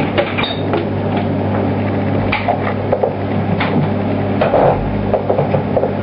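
Microwave oven running with a steady low hum, with scattered knocks and clicks over it.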